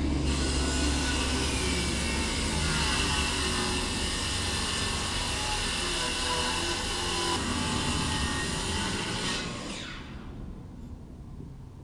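A motor or power tool running steadily with a high whine, then winding down with a falling pitch about ten seconds in.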